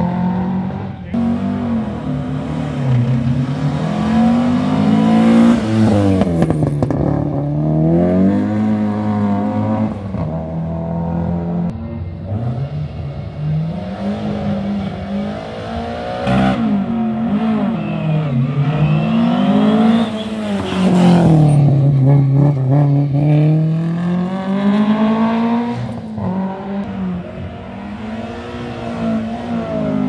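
Historic rally car engine revving up and down over and over, its pitch climbing and falling every few seconds.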